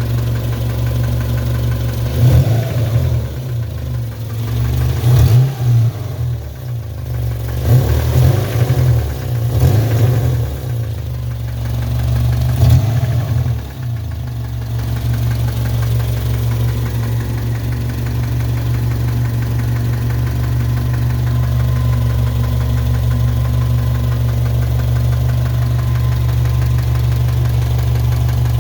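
A 1997 Subaru Impreza's EJ22 flat-four engine running with a knocking noise, which the owner suspects is rod knock or piston slap. It is revved in several short blips over roughly the first half, then settles into a steady idle.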